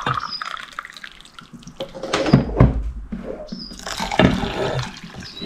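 Hot water poured from a kettle into a ceramic mug, then the mugful poured into a saucepan of dry oats. There are a couple of dull knocks a little after halfway.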